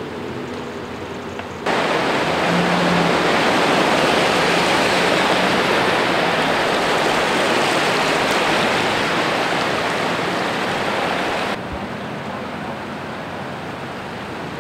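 Floodwater rushing across a road: a loud, steady rush of water that starts abruptly about two seconds in and drops away near the end to a quieter, steady wash of water.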